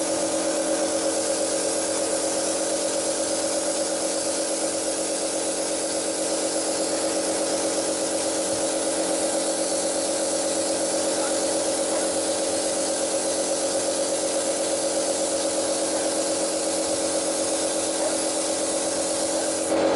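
Pneumatic paint spray gun hissing steadily as it sprays, over the steady hum of the air compressor feeding it.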